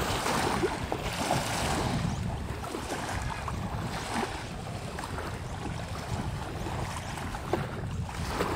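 Small wind-driven waves lapping and splashing against a grassy lake bank, with wind rumbling on the microphone.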